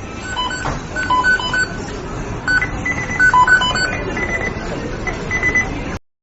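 The McDonald's kitchen beeping sound effect: many short electronic beeps at a few different pitches, overlapping in quick repeating patterns over steady background noise. It cuts off suddenly near the end.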